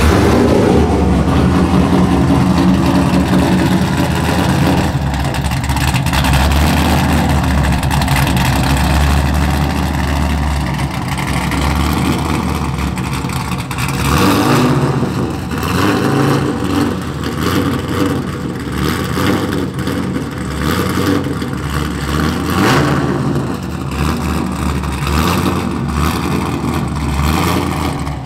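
Cammed LS6 V8 running through long-tube headers and an essentially straight-piped single exhaust, loud and steady at first, then revved up and down a number of times in the second half.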